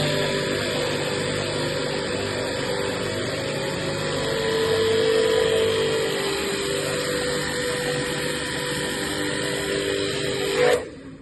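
A small electric motor running steadily, with a constant hum and a higher whine over a hiss. It cuts off suddenly near the end.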